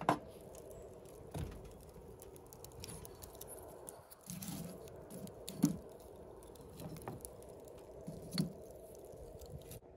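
Wood fire crackling in the fuel tray of an Ooni Karu pizza oven, small irregular pops throughout. A metal clunk right at the start as the fuel cover comes off, and a few louder knocks of hardwood kindling pieces going into the fire.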